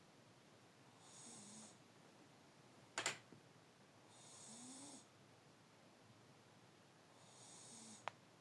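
A sleeping pet snoring softly, one snore about every three seconds, three in all. A sharp click about three seconds in is the loudest sound, and a smaller tick comes near the end.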